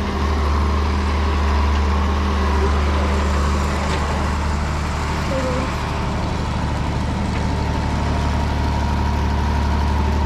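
Farm tractor engine running at a steady speed: a continuous low drone with a faint steady whine above it.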